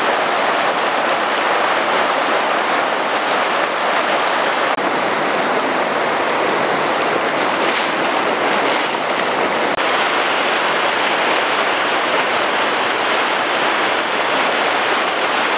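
Floodwater rushing: a loud, steady roar of water that holds throughout, with slight dips about five and ten seconds in.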